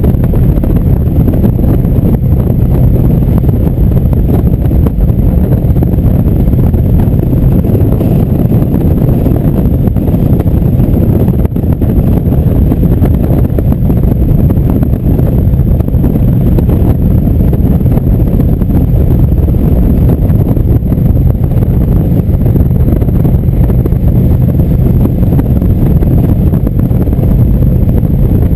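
Wind rushing over the microphone of a motorcycle cruising at road speed, with the Indian motorcycle's V-twin engine running steadily beneath it as a low, even rumble.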